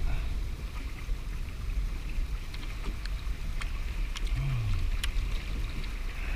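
Wind buffeting the microphone and small waves lapping against a kayak hull, as a steady low rumble and hiss. A few light clicks come through about halfway.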